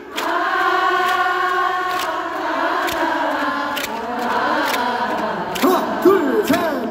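Unaccompanied trot singing with many voices singing together, most likely the audience singing along. About five and a half seconds in, the male solo singer's voice comes back over it with wavering, bending notes.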